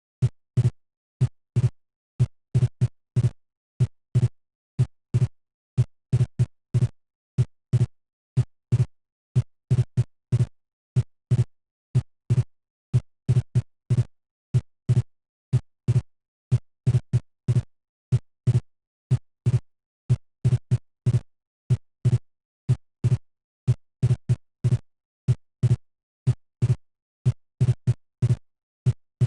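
Auscultated heart sounds played as a teaching recording: a steady, regular beat of short lub-dub sounds with silence between them.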